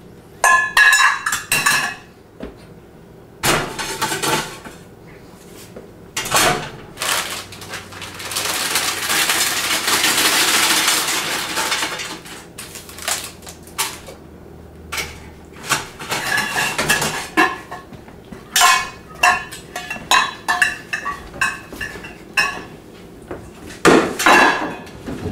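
A metal pot and utensils clanking and clinking: repeated sharp knocks that ring briefly. About eight seconds in, a steady hiss runs for around four seconds.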